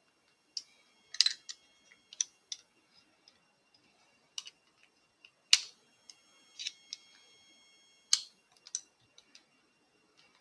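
Irregular sharp metallic clicks and taps from a Mul-T-Lock Integrator padlock and tools being handled while trying to gut it, a dozen or so spread over ten seconds, the loudest about a second, five and a half and eight seconds in, some ringing briefly.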